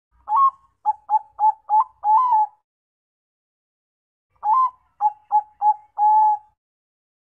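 Zebra dove (Bangkok-type perkutut) singing its cooing song twice: each phrase opens with a slightly rising note, runs into quick short notes (four the first time, three the second) and ends on a longer held coo.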